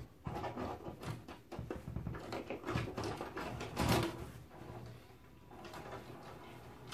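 VCR taking in a VHS cassette and threading the tape: a run of mechanical clicks and clunks with a louder clunk about four seconds in, then faint steady running as it plays. With a stray metal piece removed from inside, the mechanism sounds better and no longer chews the tape.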